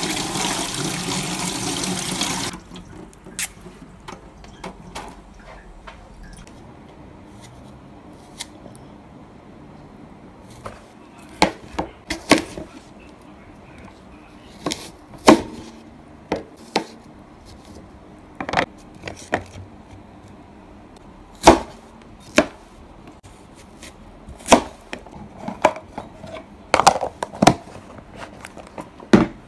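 Kitchen tap running over hands being washed for the first two or three seconds. Then a knife cuts an apple on a wooden cutting board: about a dozen sharp, separate knocks a second or more apart.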